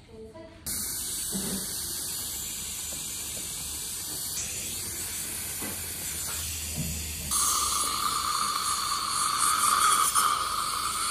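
Dental saliva ejector sucking with a steady hiss that switches on suddenly about a second in, then grows louder with a steady higher tone added about seven seconds in.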